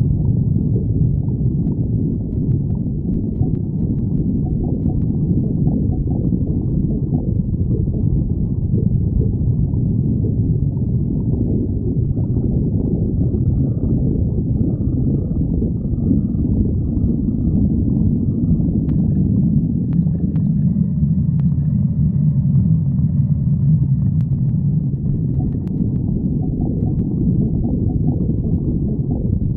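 A person's stomach growling: continuous low rumbling and gurgling that never stops, with a faint higher-pitched squeal coming in through the middle stretch.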